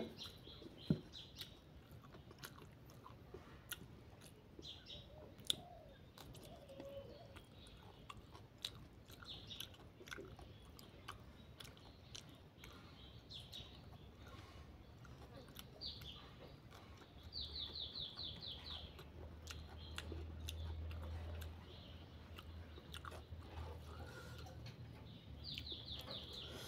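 Close chewing of a mouthful of rice and egg curry, with many small wet mouth clicks. Birds chirp in the background, one in quick runs of notes, and a faint low hum sets in for several seconds in the middle.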